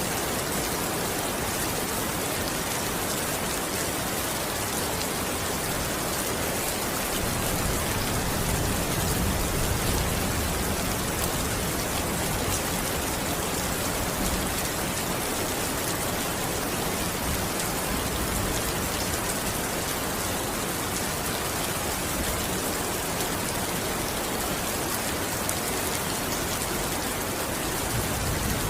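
Steady rain falling and pattering on surfaces, with a low rumble swelling briefly about eight to ten seconds in.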